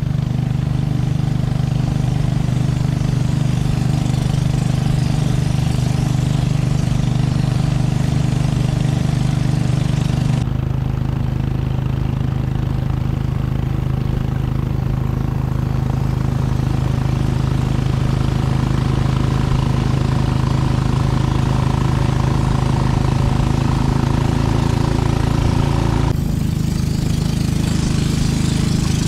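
Boat engine running steadily at constant speed, a low droning hum. The sound shifts abruptly about ten seconds in and again near the end.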